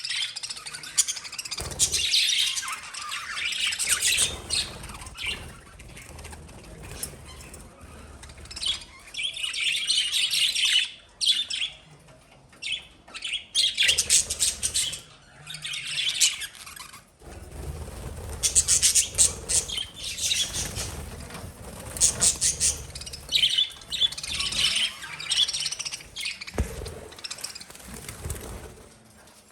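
Pet lovebirds chirping in repeated bursts with short pauses between them.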